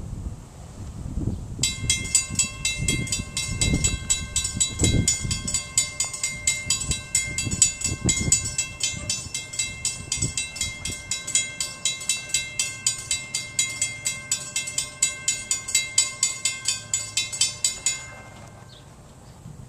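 Railroad grade-crossing warning bell ringing at a few strikes a second, starting about a second and a half in and stopping near the end: the crossing signals are active for an arriving train. Low thumps sound under it in the first half.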